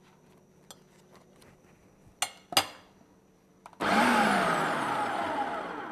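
Black+Decker food processor running for about two seconds as it pulses butter into the flour mixture for a pie crust. It starts suddenly about four seconds in and stops near the end. Two short clicks come before it.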